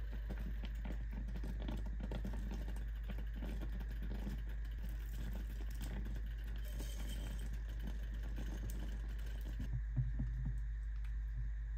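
Chicken and broth simmering in a stainless steel skillet, a faint irregular crackle over a steady low hum. Near the end come a few soft knocks as the pan is handled.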